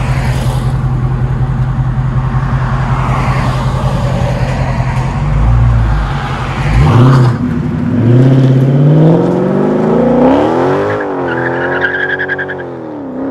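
Dodge Charger Scat Pack's 392 (6.4 L) HEMI V8 with its mufflers deleted, idling steadily, then revving as it pulls away and accelerating hard. The engine pitch climbs, drops at a gear change about eleven seconds in, then climbs again.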